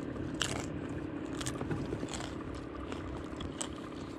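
Crunching bites of a crisp tostada being eaten: about five short, sharp crunches at irregular intervals over a steady low hum.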